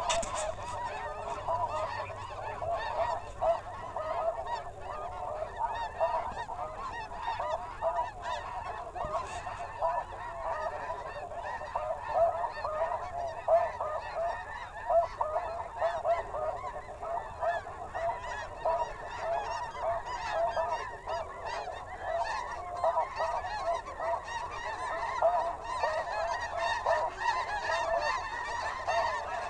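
A dense, unbroken chorus of snow goose calls, many birds calling over one another at once.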